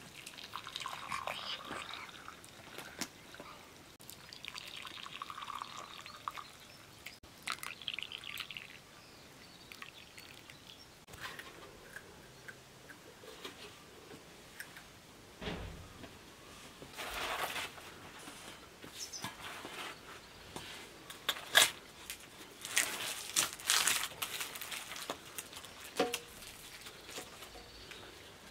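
Green tea poured from a glass teapot into glass cups in three short pours, a trickling hiss each time. Later come scattered light clinks of glasses and cups and the rustle and crackle of flatbread being torn.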